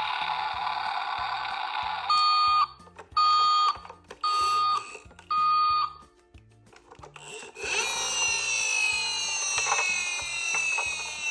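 Electronic sound effects from a toy emergency vehicle: a buzzy tone, then four short beeps about a second apart, then a long falling wail with many overtones. Light background music runs underneath.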